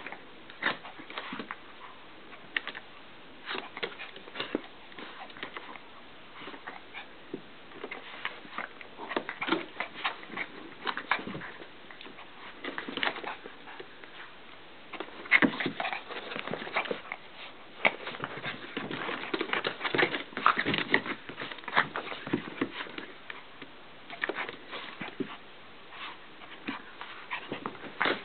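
Two small terrier dogs play-wrestling in a fleece dog bed: irregular scuffling, rustling and clicking of paws and bedding, busiest in the middle.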